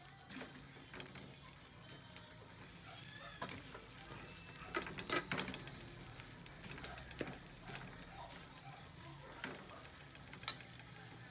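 Fried rice sizzling in a metal wok while a metal spoon stirs and tosses it, with sharp clinks and scrapes of the spoon against the pan now and then, the loudest about five seconds in.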